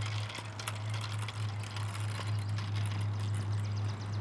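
Small bicycles rolling on a paved path, with scattered small clicks and rattles over a steady low hum.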